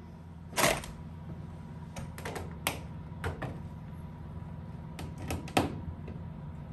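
Rivets being pushed by hand into drilled holes in thin aluminium aircraft skin: irregular light metallic clicks and taps, about eight in all, the sharpest about a second in, over a steady low hum.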